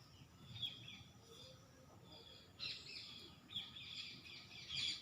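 Faint bird chirping in the background, in several short bursts of high chirps.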